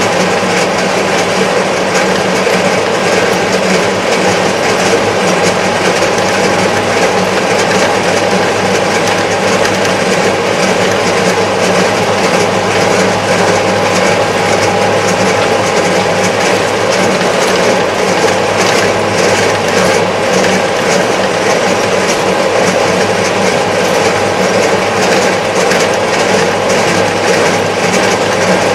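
Kubota MZ755 tractor's diesel engine running steadily as the tractor drives along a road, heard from inside the cab with a steady low hum and a light rattle over it.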